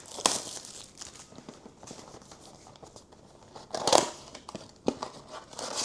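Plastic packaging crinkling and a stack of trading cards being handled, with scattered small clicks and a louder rustle about four seconds in.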